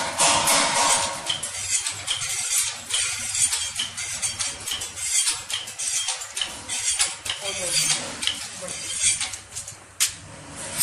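Windmill-driven reciprocating air compressor, a cam shaft working an inverted cylinder, clattering in a steady rhythm of about two clicks a second with a hiss of air as it pumps air into its storage tank.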